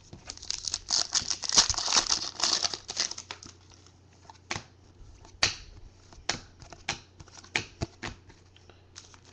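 Trading cards and a clear plastic card holder being handled by hand. There is a dense crinkling rustle for the first three seconds or so, then scattered sharp clicks and snaps of cards being flicked and set down on the table.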